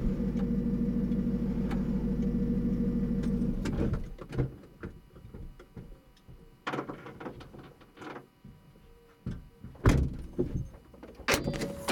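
VW Eos folding-roof mechanism running its electro-hydraulic pump motor with a steady hum that cuts off about four seconds in, while the roof fails to open. Afterwards there are a few scattered clicks and knocks, the sharpest just before ten seconds.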